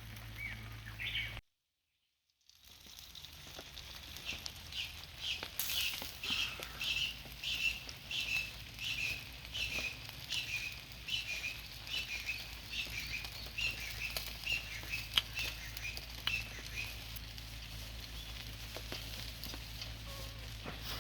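A bird calling: a long run of short, high chirps, about two a second, that fades out after the middle, over a steady low hum. The audio cuts to silence for about a second near the start.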